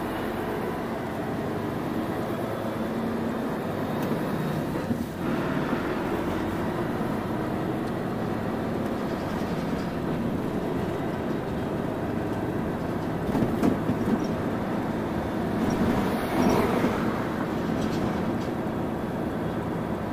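Volvo FH12 500 truck's inline-six diesel engine running under way, with steady road and rolling noise, getting louder and rougher for a few seconds about two-thirds of the way through.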